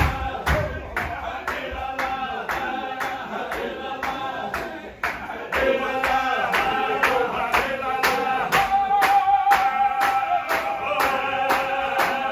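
A group of men chanting a Sufi zikr in unison, holding long sung notes over a steady beat of hand claps at about three a second. The chant drops away briefly about five seconds in, then comes back stronger.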